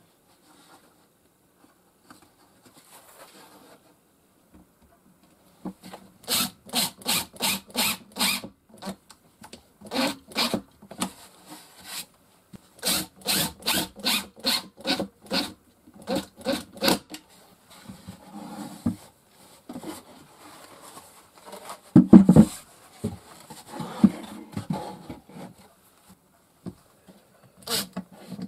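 Cordless impact driver driving screws into a wooden shelf panel, in several runs of evenly spaced sharp clicks, about three a second. Quieter scraping of wood falls between the runs, with one loud knock about two-thirds of the way through.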